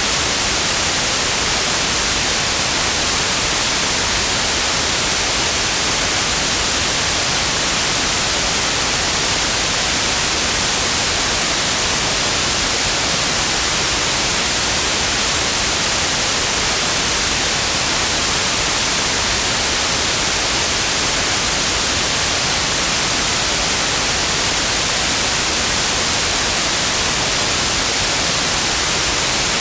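Steady synthetic white noise: an even, unchanging hiss, strongest in the high frequencies.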